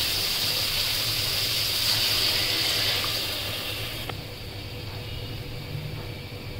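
Onions, green chillies and ginger-garlic paste sizzling in hot oil in an aluminium pot. The steady hiss dies down about four seconds in.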